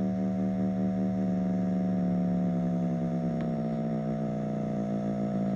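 Loudspeaker playing a steady, low test tone, with several fainter steady tones above it that beat against each other and give a slow pulsing.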